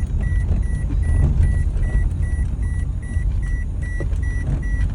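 Steady low rumble of a vehicle's engine and road noise, with a short high electronic warning beep repeating evenly about two to three times a second.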